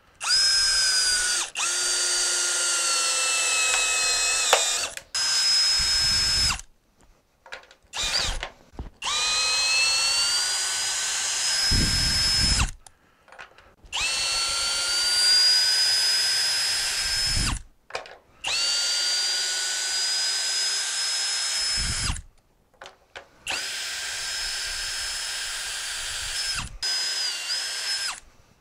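Budget 18V cordless drill running in about six bursts of a few seconds each, backing 3/8 by 3-inch lag bolts out of a doubled 2x4. The motor whine sags in pitch under load and climbs as the load eases, with short pauses between bolts.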